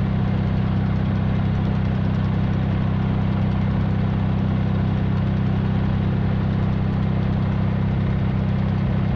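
Tractor engine running steadily at low speed, heard from on board.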